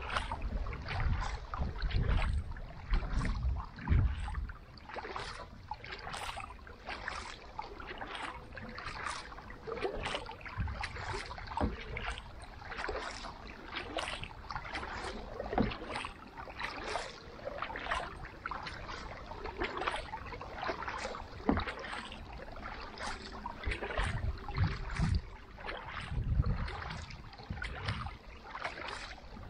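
Kayak paddle strokes: a carbon paddle's blades dip and splash into lake water in a steady rhythm, about one stroke a second. Wind buffets the microphone in low gusts near the start and again near the end.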